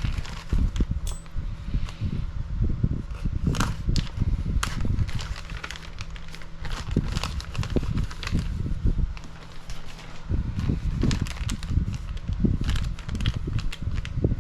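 Plastic kit parts bags crinkling and rustling as they are handled and opened, with irregular crackles, light clicks and low handling thumps.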